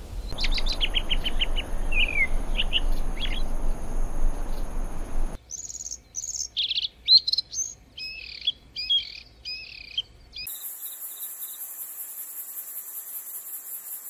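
Birdsong in three spliced recordings. First a run of quick chirps and down-slurred whistles over a steady hiss. From about five seconds in, a songbird's varied, jumbled song. From about ten seconds in, a steady, high, evenly pulsing insect-like trill.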